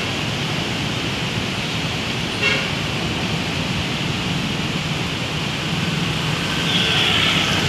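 Road traffic driving through floodwater: engines running and tyres sloshing through the water, with a short car horn toot about two and a half seconds in. A louder hiss of spray builds near the end as more vehicles pass.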